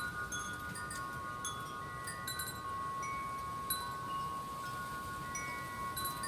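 Wind chimes ringing in the wind, struck at irregular moments, with long sustained tones overlapping and a faint hiss of wind underneath.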